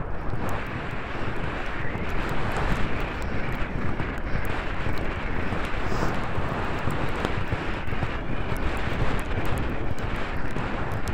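Steady wind rush buffeting a helmet-mounted camera's microphone as the horse gallops.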